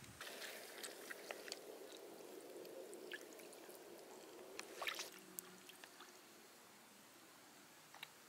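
Faint lake water trickling and splashing lightly as a hand dips into the shallows, with a short cluster of small splashes about five seconds in.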